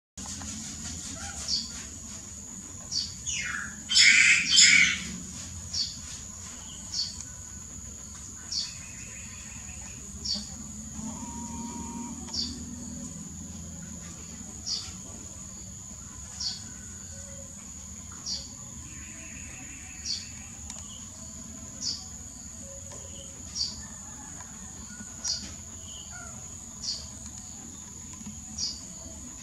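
Birds chirping over a steady, high insect drone: one bird repeats a short, falling chirp about every second and a half to two seconds, with a louder burst of calls about four seconds in.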